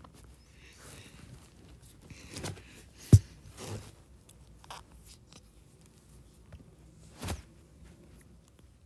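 A few scattered knocks and rustles, the sharpest and loudest about three seconds in and another about seven seconds in.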